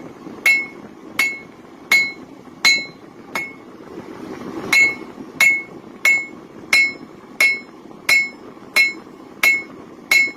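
Hand hammer striking a railroad spike on an anvil in steady blows, about one and a half a second, each with a bright ringing ping. One blow is light and there is a short pause around four seconds in. The smith is thinning out the blade near the tang.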